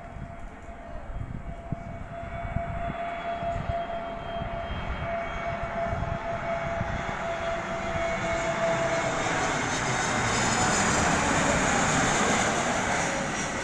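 Airbus A321neo on final approach with its landing gear down, its CFM LEAP-1A turbofan engines running. The jet noise grows steadily louder as the airliner comes in low and is loudest about eleven to twelve seconds in, then begins to fade. A steady whine sits over the rush through the first two thirds and dies away about nine seconds in.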